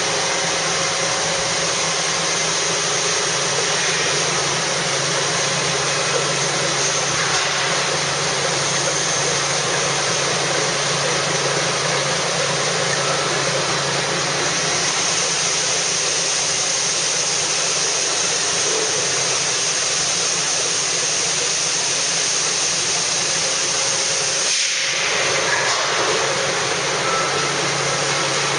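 Steady machinery noise with a strong, even hiss and a faint low hum, from equipment running close by, dipping briefly near the end.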